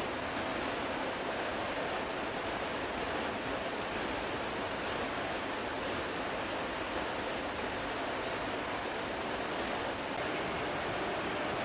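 Steady rushing noise inside a KC-130J tanker's cargo hold in flight with the rear ramp open: wind blended with the drone of its four turboprop engines.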